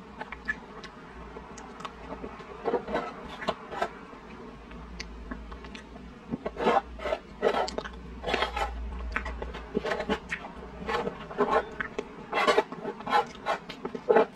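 Close-miked mouth sounds of eating soft, sticky chocolate: irregular wet smacks and clicks of chewing and lips. They come sparsely at first and grow denser and louder about halfway through.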